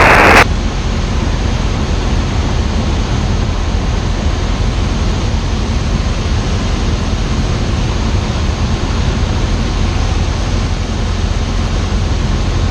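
Steady drone of a Cessna 172 Skyhawk's piston engine and propeller heard inside the cockpit, with a low hum and a wide rush of air noise, unchanging at pattern power.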